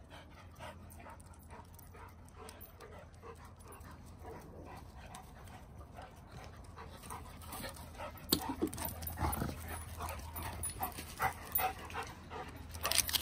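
Dogs panting hard while they play, with quick scuffling noises that get louder and sharper in the second half.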